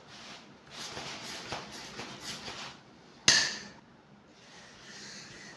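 Manual air pump forcing air through its nozzle into the valve of an inflatable paddling-pool ring: a run of rushing air bursts. About three seconds in comes one sharp knock, the loudest sound.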